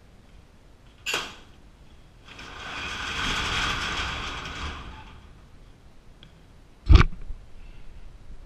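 Sectional overhead garage door being raised by hand: a click about a second in as it is released, then the panels rattle and roll up along their tracks for about two and a half seconds. A single loud thump follows near the end.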